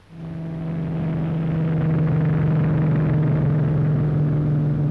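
Piston aircraft engine drone, a steady low hum that fades in over the first two seconds and then holds steady.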